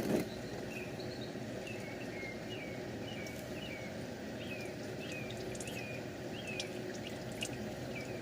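Used engine oil mixed with engine flush pouring steadily out of the drain plug hole into a drain pan, after a brief clatter right at the start. A bird chirps over and over in the background, short falling notes about twice a second.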